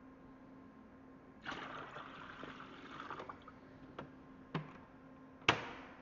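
Water running for about two seconds, then three sharp clicks or knocks, the last the loudest, over a faint steady hum.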